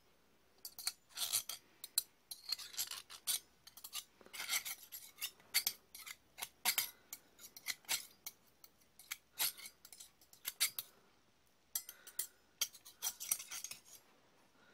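Steel table knife and fork scraped against each other in many quick strokes, like a knife being sharpened, with sharp metallic rasps and clinks.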